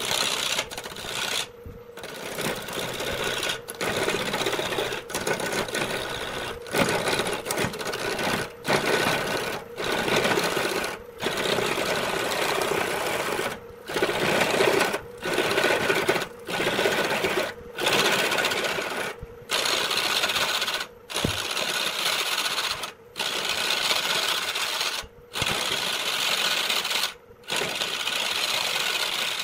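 Turning tool cutting a glued-up block blank spinning on a wood lathe: a rough cutting noise over the lathe's steady hum, broken off briefly every second or two.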